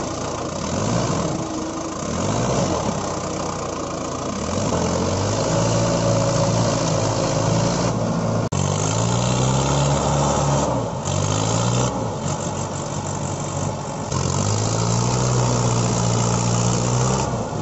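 Tractor engine sound, laid over the toy tractor's pull: it runs steadily and revs up in repeated swells, each rising in pitch and then holding for a few seconds, with a brief break about halfway through.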